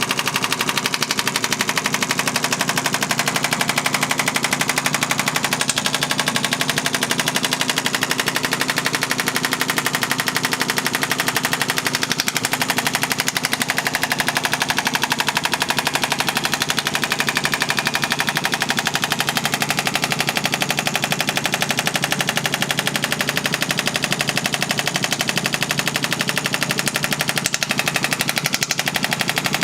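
Radial shockwave therapy applicator firing rapid pulses into the neck at raised intensity, a fast, steady, unbroken train of clicks.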